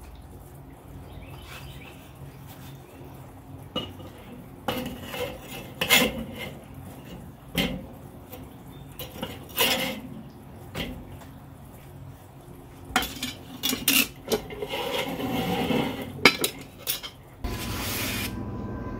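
Metal spatula scraping and clinking against a charcoal grill's cooking grate as grilled buns are lifted off, in irregular knocks and short scrapes. Near the end it cuts to a steady low hum.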